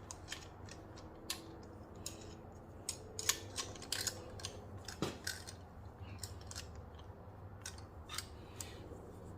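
Metal tool clicks and clinks: a ratchet and socket turning engine cap bolts through a torque angle gauge. The clicks are short and irregular, busiest in the middle, over a steady low hum.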